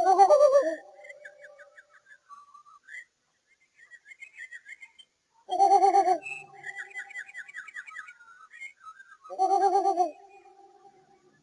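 Spinosaurus sound effect: three short, warbling, trilled calls about four to five seconds apart, with faint high chirps between them.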